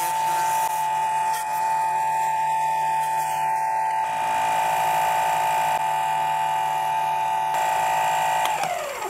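Mini lathe running at speed with a steady high whine while emery paper and a Scotch-Brite pad rub on the spinning aluminium workpiece. Near the end the lathe is switched off and the whine falls in pitch as it spins down.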